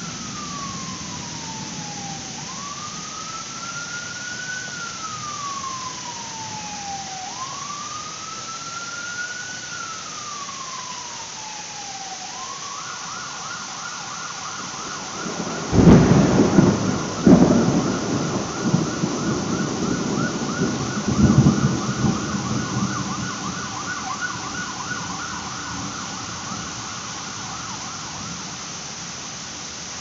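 Steady heavy rain, with a sharp thunderclap just past halfway, a second crack right after, and rolling thunder for several more seconds. Underneath, an emergency-vehicle siren goes through slow rising-and-falling wails, then switches to a fast yelp about twelve seconds in. The thunderclap is the loudest sound.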